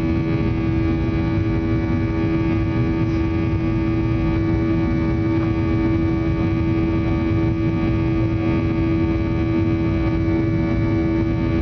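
Airliner engines at climb power heard inside the passenger cabin during the climb after takeoff: a steady, loud drone with a strong humming tone over a low rumble.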